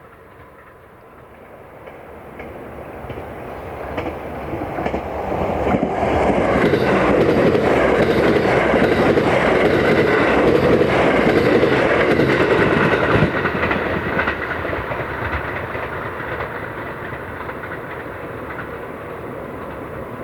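A JR West electric multiple-unit train approaching and passing at speed, its wheels clicking over the rail joints. The rumble builds over the first few seconds, is loudest in the middle, then fades slowly as the train moves away.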